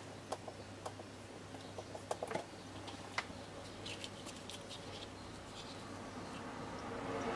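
Faint scattered clicks and light scrapes of a soldering iron with a wire-spring tip adapter working on a circuit board, about a dozen small ticks, the sharpest a little after two seconds and just after three, over a steady low hum.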